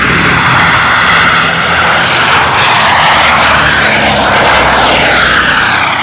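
Four-engine propeller bomber, a B-29 Superfortress, flying low overhead: the loud, steady drone of its radial piston engines and propellers.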